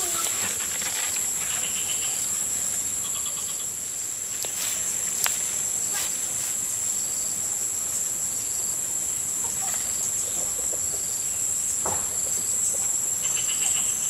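Insect chorus: a steady, high-pitched shrill drone of insects. Short chirping trills come in a few times, a couple of seconds in and again near the end. A few sharp clicks sound around the middle.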